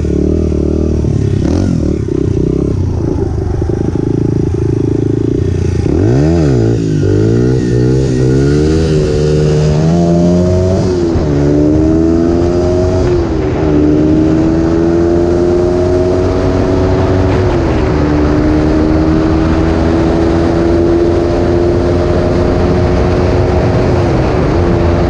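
Honda 100 dirt bike's single-cylinder engine at low revs for several seconds, then accelerating up through the gears, the pitch climbing and dropping at each shift, before holding a nearly steady pitch while cruising.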